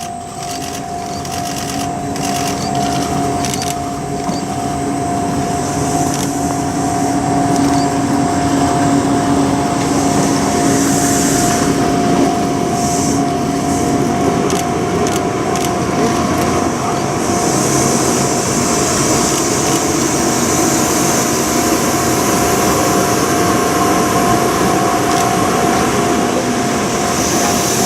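Railway level-crossing warning alarm sounding as one steady tone, over an N700S Shinkansen train running slowly past the crossing. The train noise grows louder over the first eight seconds and then holds, with patches of high hiss.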